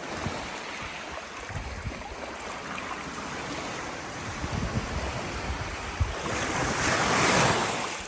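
Sea waves washing on the shore, with wind buffeting the microphone. Near the end a louder rush swells up and fades away.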